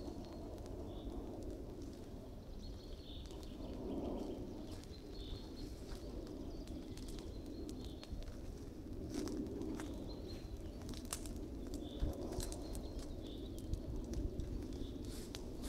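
Brushwood bonfire burning with a low rush and scattered sharp crackles and pops, more of them in the second half. Birds call repeatedly in the background.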